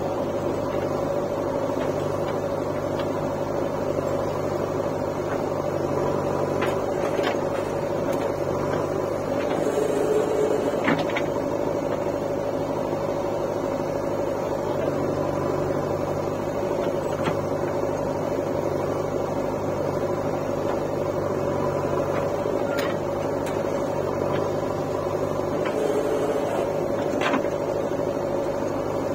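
Diesel engines of a JCB backhoe loader and tractors running steadily as a drone, with a few short sharp knocks scattered through it while the backhoe loads soil into a steel tractor trolley.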